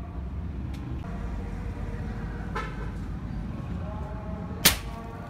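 A single sharp shot from an Artemis SR1250W gas-piston air rifle, about four and a half seconds in, over a steady low background rumble.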